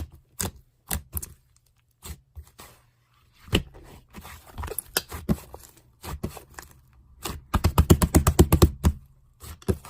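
A series of sharp clicks and taps like typing, irregular at first, then a fast run of about ten clicks a second for roughly a second and a half near the end.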